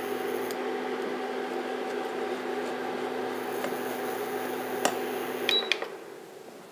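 Portable induction cooktop running under a pan of caramel sauce: a steady electrical hum with a fan and a faint high whine that drops out about half a second in and comes back about three seconds later. A light knock comes near five seconds, and the hum cuts off about a second after that.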